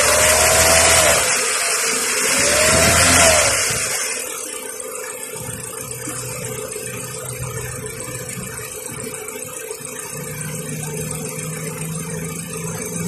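Kia Rio engine, seen with the hood open, revved twice, the pitch rising and falling each time. It then settles into a steady idle about four seconds in.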